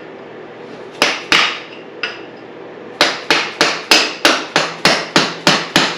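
Mallet striking a metal punch to drive a bolt out of a dirt bike's rear suspension: two blows about a second in, then a steady run of about ten blows at roughly three a second from halfway through.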